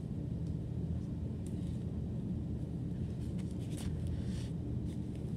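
A steady low hum throughout, with a few faint crinkles of a paper diaper being fastened on a baby doll.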